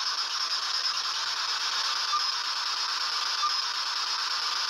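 Steady radio static hiss from a spirit box scanning radio channels, used to try to pick up spirit voices.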